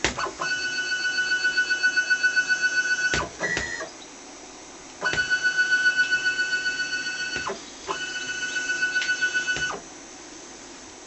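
Stepper motors of a small hobby CNC machine whining at one steady high pitch during moves. The runs last a few seconds, start and stop abruptly and are separated by short pauses, with one brief higher-pitched move in between.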